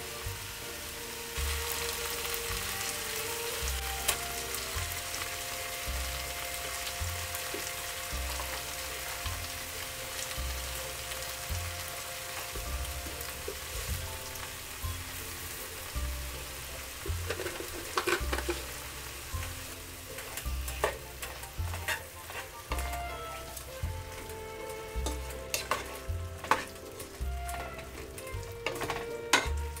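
Chopped tomatoes and onions sizzling in hot oil in a pot. In the second half a wooden spatula stirs them, with frequent clicks and scrapes against the pan. Soft background waltz music with a regular low beat plays underneath.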